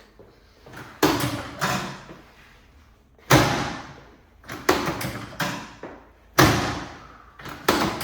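A chiropractic drop table's sections dropping under adjustment thrusts: about eight sharp, loud thuds at irregular intervals, each fading over about half a second.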